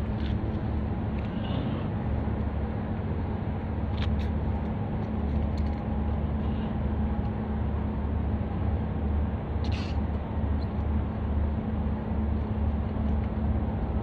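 Steady low rumble with a constant hum over it and a few faint clicks.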